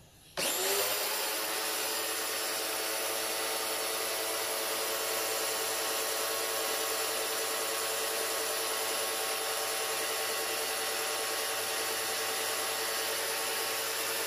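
Hyundai electric pressure washer switching on about half a second in and running steadily: a whining motor and pump with the hiss of the water jet from the lance. It is building pressure again now that its clogged water path has been cleaned out.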